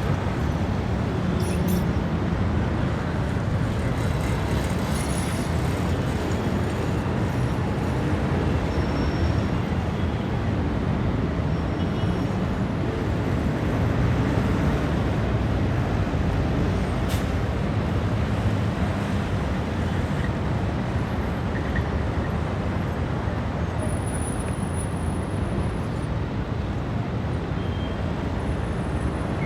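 Dense city traffic: a steady wash of engines and rolling tyres from many cars, buses and trucks, with a few faint brief tones and a click about halfway through.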